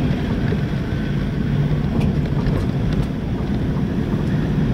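Engine of an off-road vehicle running steadily on a rough dirt track, heard from inside the cab as a low drone, with a few faint knocks from the bumpy ride.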